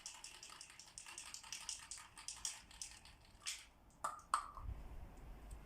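Aerosol spray paint can being shaken, its mixing ball rattling in a rapid run of sharp clicks, followed by a few short bursts of noise about two thirds through.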